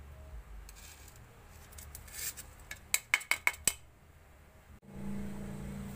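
A perforated metal skimmer tapped about five times in quick succession against the rim of a cobek mortar, knocking fried chillies and shallots off into it. A steady low hum starts near the end.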